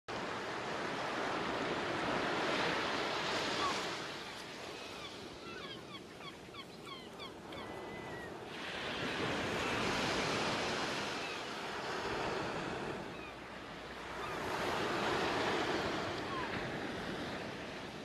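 Ocean surf washing onto the shore, swelling and falling back in slow surges every few seconds. About five seconds in there is a flurry of short high chirps that lasts a few seconds.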